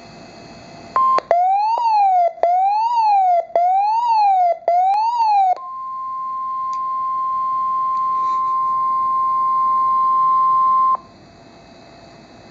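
NOAA Weather Radio alert tones over faint radio hiss: a siren-like tone sweeping up and down about once a second for four seconds, then the steady 1050 Hz warning alarm tone, swelling slightly for about five seconds before it cuts off suddenly. The tones signal that a warning broadcast, here a severe thunderstorm warning, is about to be read.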